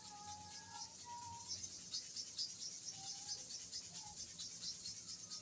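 Clipper blade rubbed back and forth on a manual sharpening stone wetted with kerosene: a quiet, rhythmic scraping of about four to five strokes a second.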